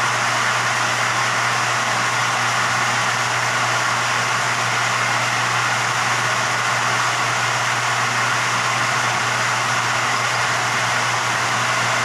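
A motor running steadily: a constant low hum under an even mechanical noise, with no change in pitch or level.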